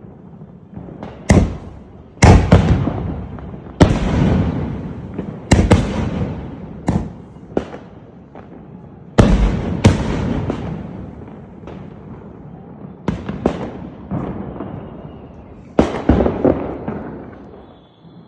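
A Sony Fireworks '21st Century' 24-shot cake firing aerial shells: about a dozen sharp bursts, some in quick pairs, each one trailing off. The bursts die away near the end as the cake finishes.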